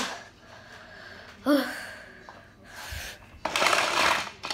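Plastic toy pieces and track clattering and rustling as they are handled, loudest for just under a second near the end, with a brief vocal sound about a second and a half in.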